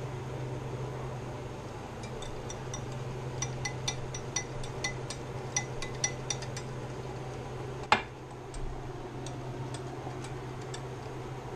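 Metal whisk clinking against the side of a bowl while beating powdered-sugar icing, in a quick irregular run of light ringing clinks, with one sharper knock about eight seconds in. A steady low hum runs underneath.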